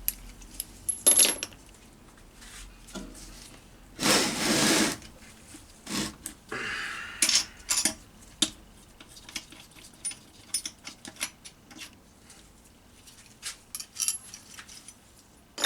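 Loose metal bolts and hand tools clinking and clattering as they are handled and set down during a gearbox teardown. There is a noisy scraping burst about a second long around four seconds in.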